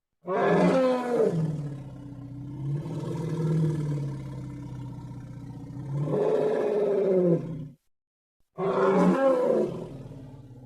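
Elephant calls: one long pitched, wavering call lasting about seven and a half seconds that cuts off abruptly, then a second call starting about a second later.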